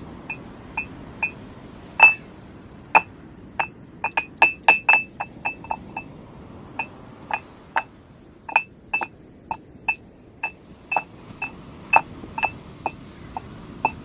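Stone roller of a granite grinding stone knocking down onto the slab again and again as ginger is crushed: sharp clacks with a short ring, irregular, about two a second, the loudest about two seconds in.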